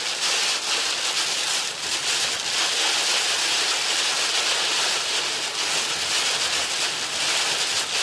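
Heavy thunderstorm downpour drumming on a moving vehicle's windshield and body, with tyres hissing through water on the road and gusting wind, heard from inside the cab as one steady, loud wash of noise.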